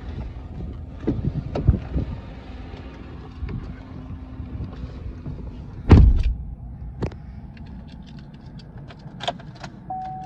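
2014 Chevrolet Silverado's engine idling just after a remote start, with a heavy door thud about six seconds in and a few sharp clicks after it. A steady electronic chime starts near the end.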